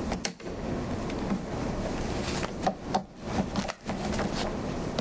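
Rubbing and rustling noise with several short, sharp knocks, like objects being handled and shifted close to the microphone.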